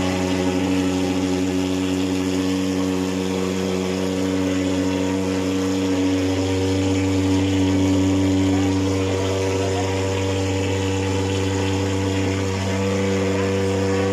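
Gasoline-powered thermal fogging machine running steadily, a continuous engine drone that shifts slightly in pitch about six seconds in and again near the end.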